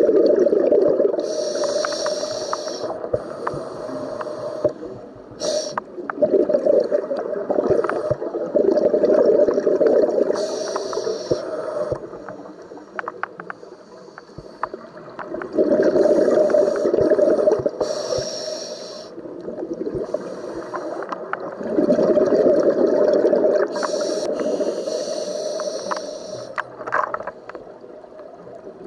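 A scuba diver breathing through a regulator underwater: four long gurgling rushes of exhaled bubbles, about every six to seven seconds, with the higher hiss of the regulator on the breaths.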